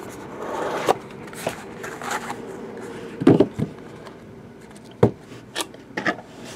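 Hands handling a cardboard trading-card box and a hard plastic card holder: scattered taps, clicks and scrapes, the sharpest about three and five seconds in.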